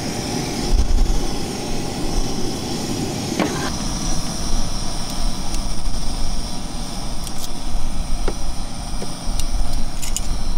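Steady outdoor noise with a low rumble that comes and goes. In the second half there are a few light metallic clicks of steel tongs against a stainless steel cooking pot.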